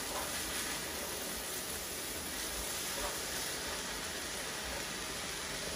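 Steady hiss of rice frying and cooking in a pan on a gas hob while it is stirred with a wooden spatula.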